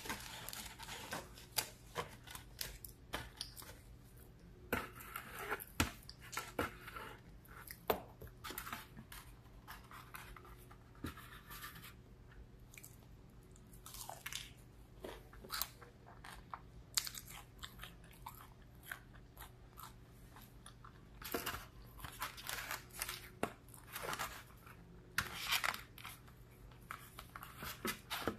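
A person biting and chewing breaded fried fish: irregular clusters of crunches and wet mouth clicks, with short pauses between them.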